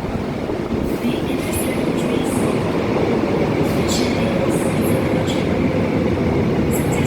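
Seoul Subway Line 2 electric train rolling into the station, a steady heavy rumble growing slightly louder, with several brief high-pitched hisses or squeals cutting in.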